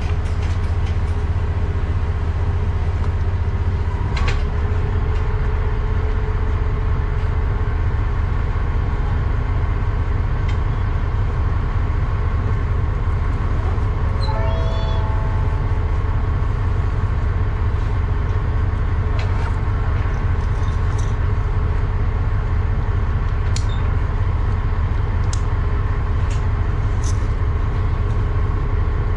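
Diesel railcar idling while it stands still: a steady low engine hum with a few constant tones over it. A brief higher-pitched warble comes about halfway through.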